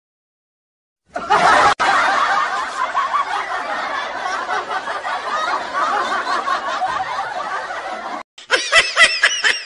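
Laughter added over the footage. About a second in, a dense stretch of overlapping laughing starts. After a short break near the end it gives way to quick, rhythmic giggles, about four a second.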